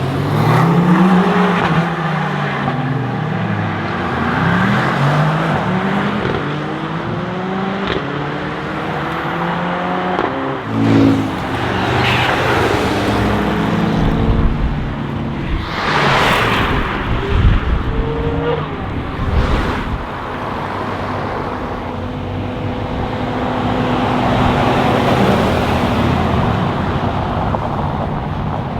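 Mercedes-AMG A45 S's turbocharged four-cylinder through a Milltek straight-pipe exhaust with the particulate filter deleted, accelerating hard with the pitch climbing through several upshifts. Loud sharp crackles and pops come in the middle, then the engine settles to a steadier drone.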